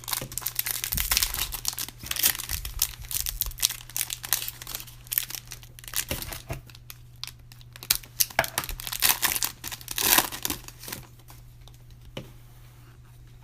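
Foil trading-card pack wrapper being torn open and crinkled by hand: a run of irregular crackling rustles that stops near the end.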